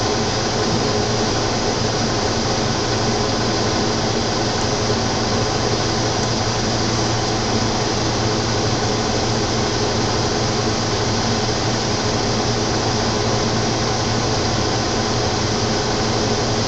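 Steady hum and hiss of background machine noise, unchanging throughout, with a faint low electrical-sounding hum underneath.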